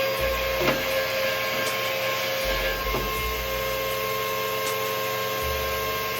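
Vacuum cleaner running steadily as it sucks dust and cobwebs out of a microwave's inside: a steady motor whine over rushing air, with two light knocks, about a second in and about three seconds in.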